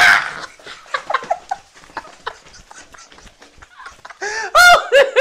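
A man and a woman laughing and shrieking, in short pitch-bending bursts, with the loudest run of high laughs near the end.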